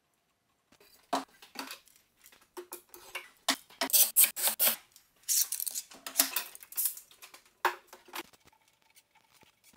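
Metal bar clamps clinking and clanking as they are lifted down and set across a glued-up end-grain board. The sharp clicks and rattles start about a second in and are busiest in the middle.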